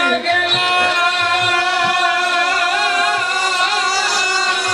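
Live kirtan music: a single long note with vibrato held throughout, over instrumental accompaniment with a soft repeating drum beat.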